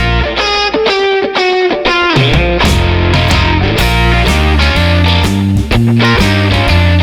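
Background music: a few clear pitched notes, then from about two seconds in a steady beat with strong low bass notes under it.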